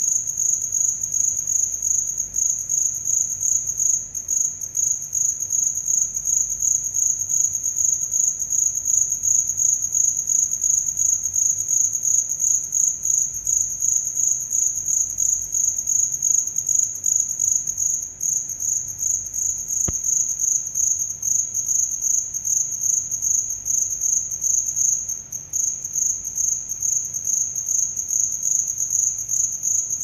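Male cricket singing by rubbing its raised forewings together: a continuous, rapidly pulsing, high-pitched trill.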